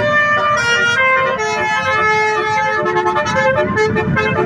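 Telolet bus horn, a set of air horns sounding several notes at once and switching between pitches every fraction of a second to play a tune.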